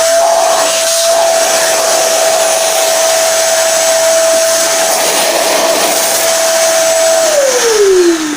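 Electric wood router running at full speed while routing a guitar body's neck pocket, a steady whine over a noisy hiss. About seven seconds in it is switched off, and its pitch falls as it spins down.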